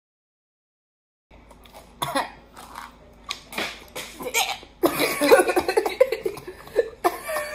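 Silent for about the first second, then women coughing and laughing, the laughter loudest from about five seconds in. The coughing comes from mouths and throats still burning from an extremely hot chili chip.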